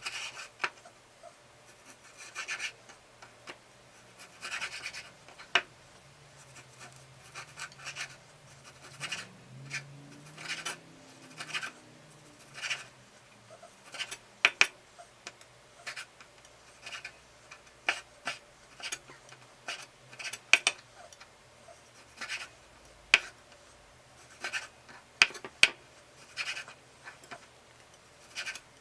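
Kitchen knife chopping and scraping through food: irregular single knocks and short scrapes every second or two, a few sharper than the rest.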